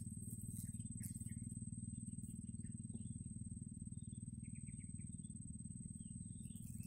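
Quiet outdoor ambience: a steady low rumble and a faint steady high whine, with a few faint short chirps, including a quick run of four about two-thirds through.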